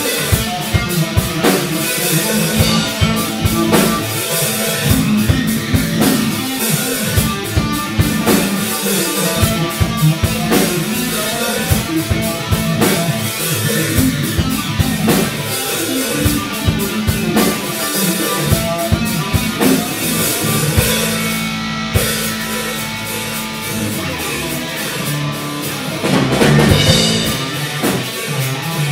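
Live rock band playing: electric guitar, bass guitar and drum kit, with a steady beat of drum hits. The band swells louder briefly near the end.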